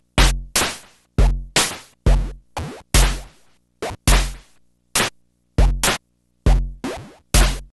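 Sequenced analog eurorack drum pattern: deep bass drum thuds layered with noise bursts from a vcNOIZ voltage-controlled noise module, each hit decaying quickly, in a syncopated rhythm of about two hits a second with a few lighter noise hits between.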